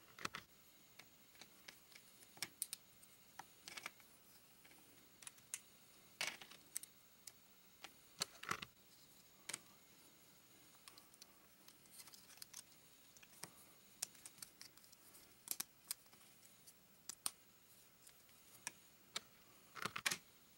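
Plastic LEGO bricks clicking and clacking as they are handled and pressed together, in irregular sharp clicks, some in quick pairs, over quiet room tone.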